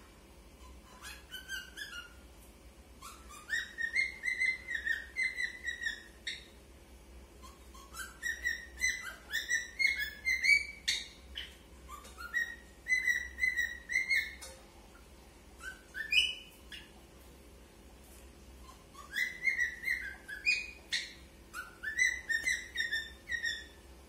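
Lutino cockatiel whistling, singing phrases of quick rising whistled notes in several bursts with short pauses between.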